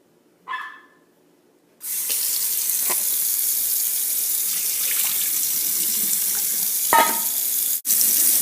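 Sink tap turned on about two seconds in, its water running steadily into the sink while the dog's water bowl is rinsed. There is a short clank near the end.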